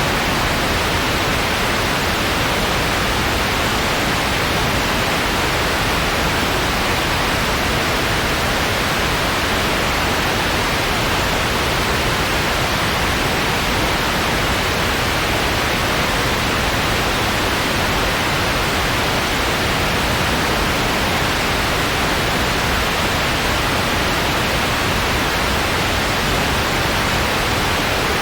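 Steady white noise: an even, unchanging hiss with no breaks or changes, played as a relaxation and sleep sound.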